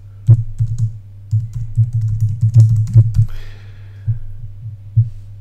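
Typing on a computer keyboard: a quick run of keystrokes for about three seconds, then a couple of lone taps near the end, over a steady low hum.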